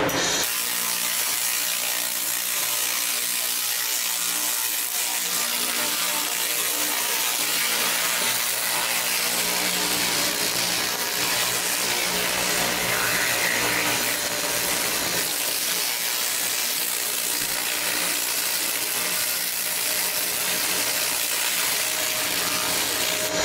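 Handheld fiber laser in remote cleaning mode ablating mill scale off a steel plate: a steady, loud hiss that starts just after the beginning and holds at an even level. The noise stays loud while the beam is still striking mill scale, and dies down once it reaches bare, reflective steel.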